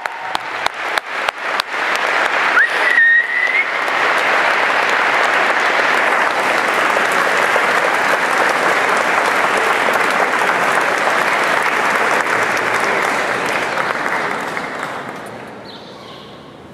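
Audience applauding: scattered claps that build within about three seconds into full, sustained applause, with one short rising whistle about three seconds in, then dying away near the end.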